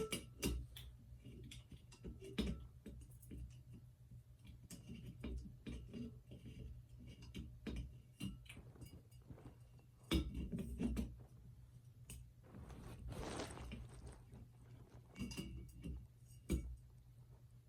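Glass light globe being handled and fitted onto a ceiling fan's light kit: scattered clinks, knocks and taps of glass against metal, with a longer scrape a little past halfway.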